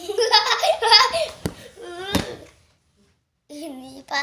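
A young child laughing and shrieking in a high voice, with two sharp clicks a little after a second in, then a short pause and more voice near the end.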